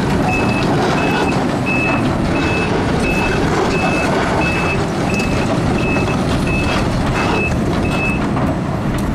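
Link Belt 290 X2 excavator's travel alarm beeping at an even pace, about three beeps every two seconds, over its running diesel engine. The beeping stops near the end.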